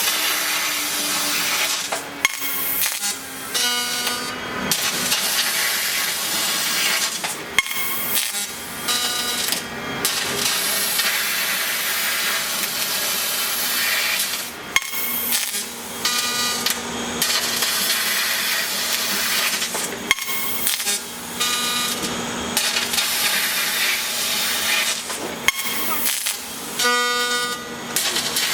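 A 20 kW fiber laser cutting 50 mm steel plate: a loud, steady hiss of assist gas and molten metal blowing through the cut, with crackling clicks. It dips briefly every few seconds.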